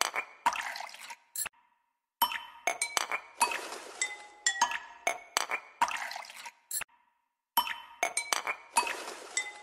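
Background music of glassy clinks and short bell-like ringing notes over quick ticking hits, stopping briefly twice for about half a second.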